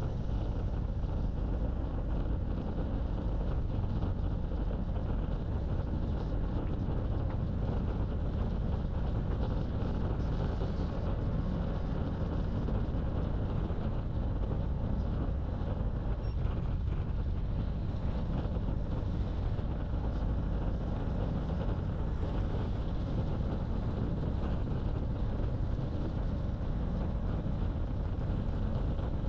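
Steady wind rushing over the microphone of a camera riding along on a bicycle, a low, even rumble with no break.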